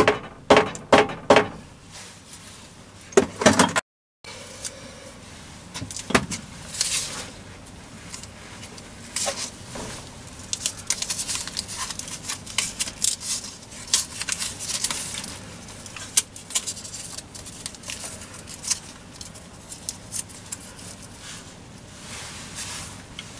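A mallet knocking on the lathe's chuck and spindle nose: a quick run of sharp knocks in the first second and a half and a few more at about three to four seconds. After that come lighter metal clicks and rattles as the headstock's spindle end is handled.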